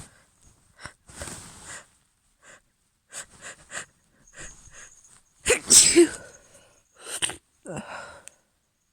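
A woman's wet allergy sneeze: a run of short sniffing breaths builds up, then one loud sneeze a little past halfway, followed by a few quick, shorter breaths.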